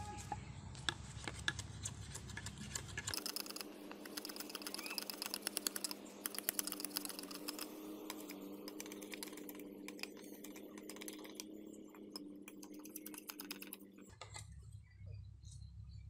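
Sickle blade scraping and tapping against an upright bamboo tube in quick, light strokes: a rapid run of small clicks, densest in the middle and thinning out before stopping near the end.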